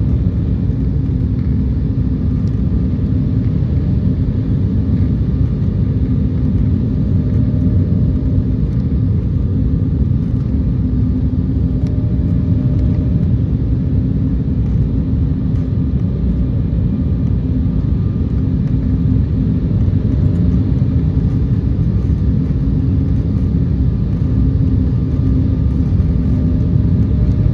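Steady cabin noise inside an Embraer E170 descending on approach: the low drone of its twin under-wing turbofans and the rush of air over the airframe, with a steady hum running through it.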